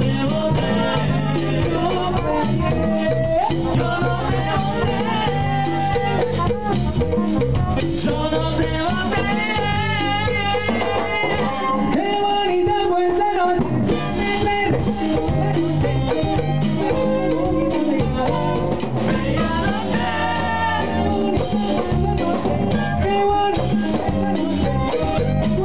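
Live dance band (orquesta) playing Latin dance music with singing over bass and drums. The bass drops out for about two seconds midway, then comes back.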